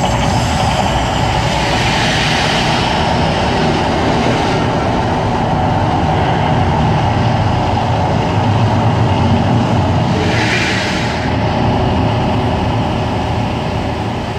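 Erupting Mirage volcano show: a loud, steady, heavy rumble with two hissing surges as the fire jets flare, about two seconds in and again about ten seconds in; the rumble eases slightly near the end as the eruption dies down.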